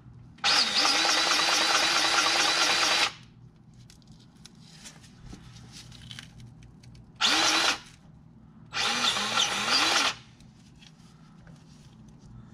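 Powered grease gun's motor running in three bursts, pumping grease into a compact tractor's drive shaft U-joint through its zerk fitting. The first burst starts about half a second in and lasts about two and a half seconds. A short one comes around seven seconds, and another of about a second follows shortly after.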